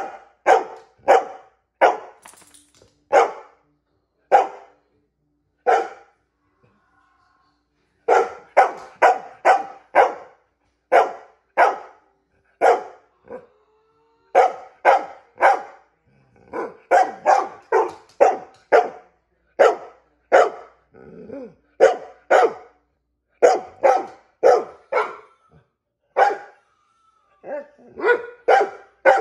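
Brown Labrador-type dog barking for a treat: a long run of short single barks, often about two a second, with one pause of about two seconds some six seconds in.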